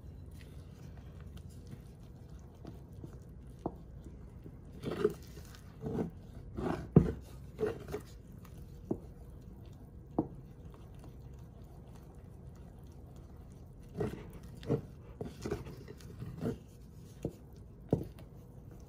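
Wooden spoon stirring thick flour-and-water sourdough starter in a ceramic bowl, with irregular clicks and knocks of the spoon against the bowl, mostly in two spells of a few seconds each.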